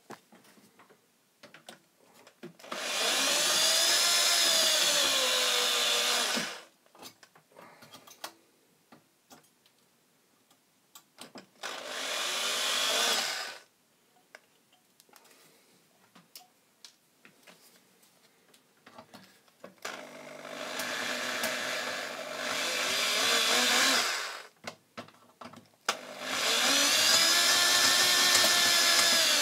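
Electric drill drilling out the rivets that hold a fan into a metal power-supply case, with a bit a little smaller than the rivets. It runs in four bursts of a few seconds each, the motor's whine rising and falling in pitch as the trigger is worked, with small clicks of handling between bursts.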